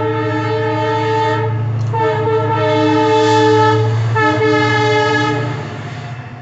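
Passing train's horn sounding in three long blasts with short breaks between, over the steady low rumble of the train.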